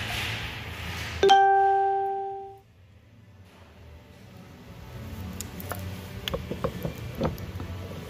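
A single loud, bell-like ding about a second in that fades and is cut off abruptly. A few seconds later come light clicks and rattles of steering-column parts being handled.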